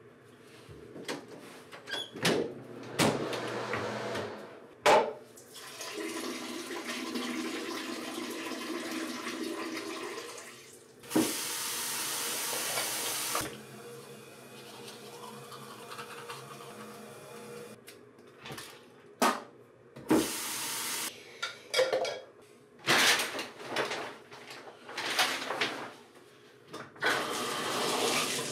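Water running in several spells, the loudest a steady hiss lasting about two and a half seconds, with sharp knocks and clatter of handling between them.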